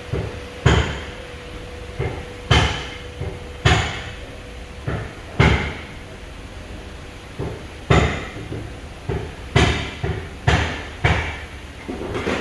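Sharp knocks of hand tools striking engine parts during rebuild work, about fifteen at irregular intervals, each with a short ring. A faint steady hum runs underneath.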